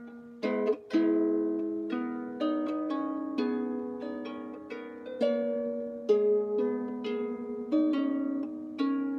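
Out-of-tune harp being plucked, about two notes a second, single notes and pairs overlapping as each one rings and fades.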